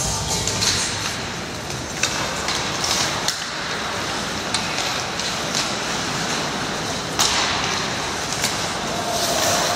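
Ice hockey in play: skates scraping and carving on the ice under a steady rink noise, with several sharp knocks of sticks and puck.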